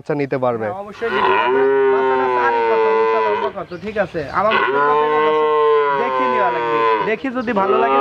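Young Holstein Friesian cattle mooing: two long, drawn-out moos of about three seconds each, the second starting a little after four seconds in.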